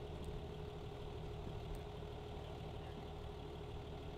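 An engine idling steadily: a low, even running sound with a constant hum.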